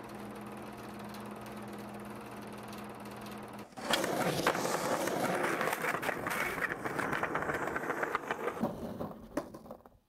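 A steady low hum, then about four seconds in the loud rolling of skateboard wheels on street pavement, with small clacks over the cracks. It fades out near the end as the skater goes airborne.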